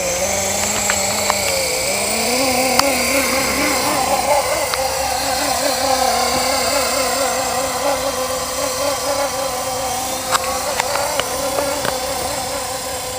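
Blade SR electric RC helicopter in flight: the motor and rotor whine holds a steady pitch that wavers slightly up and down, over wind noise, with a few sharp clicks.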